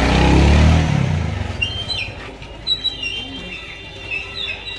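Motorcycle engine passing close by, loudest in the first second and then fading away. High chirps follow in the background.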